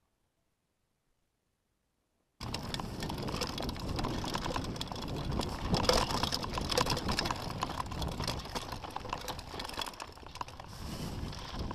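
Mountain bike descending a rough dirt trail: a dense, continuous rattle of quick clicks and knocks from the bike and its tyres over the ground. It starts suddenly after about two seconds of silence.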